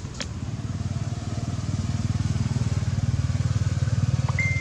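A small engine running with a low, fast pulsing that grows steadily louder, with a single click about a quarter second in.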